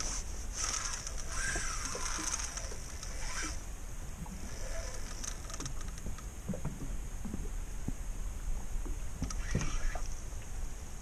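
Steady low rumble of wind and river water around a small fishing boat, with scattered light clicks and knocks. A hiss is heard in the first few seconds.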